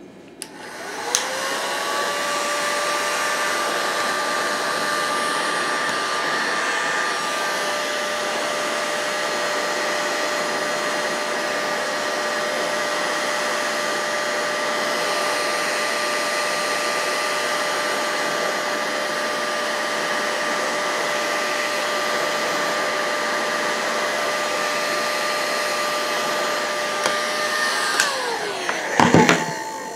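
Electric heat gun switched on about a second in, its fan whining up to a steady blowing rush while it heats an engine crankcase before the bearings are installed. Near the end it is switched off and winds down, followed by a few light knocks.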